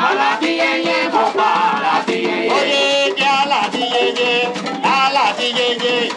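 Live Puerto Rican rumba: several hand-played conga drums in a dense rhythm, with a singer's voice over them.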